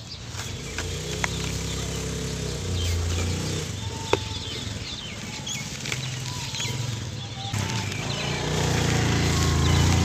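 Dry sand-cement mix crumbling from hands and pouring into a plastic bowl: a gritty trickling hiss with small ticks of grains and chunks. An engine hums in the background, louder near the end.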